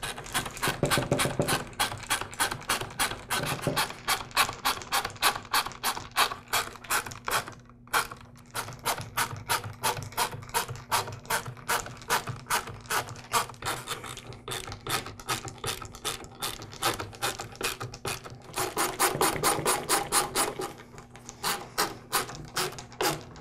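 Screwdriver driving screws into the plastic handle of a miter saw: a long run of rapid, even clicks, broken by a few short pauses as each screw is finished.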